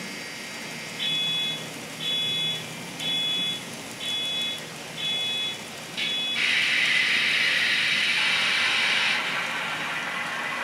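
Synthesized locomotive sound from the small onboard speakers of Kato N-gauge DCC locomotives with ESU LokSound decoders, just switched on. Six short high ringing tones come evenly about a second apart, then from about six seconds in a louder steady rushing sound takes over.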